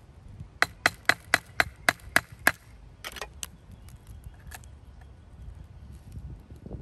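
A run of eight sharp, evenly spaced taps, about four a second, then a few weaker ones after a short pause. A tool is knocking at the rusted metal ring that holds the felt pad in the old Robbins & Meyers fan's motor, working to free it.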